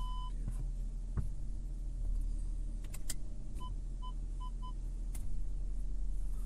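Audi A7 Bi-Turbo's V6 diesel idling steadily, heard from inside the cabin. A single electronic beep sounds at the start and four quick beeps about three and a half seconds in, from the parking system as reverse is selected, with a few light clicks in between.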